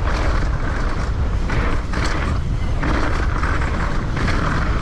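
Specialized Demo downhill mountain bike rolling down a trail: a heavy low rumble of wind on the microphone, with repeated bursts of tyre and mechanical clatter from the bike over rough ground.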